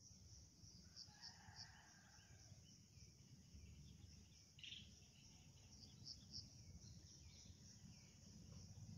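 Faint outdoor nature ambience: a steady high insect drone with pulsing chirps, a few faint bird calls, and a low rumble underneath.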